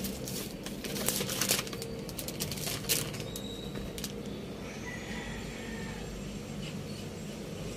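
Cellophane and paper gift wrapping crinkling and rustling as hands rummage through a gift box. The crackling is busiest in the first three seconds, then thins out.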